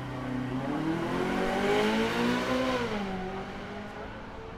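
A car engine revving: its pitch climbs steadily to a peak about two and a half seconds in, then drops back as the sound fades.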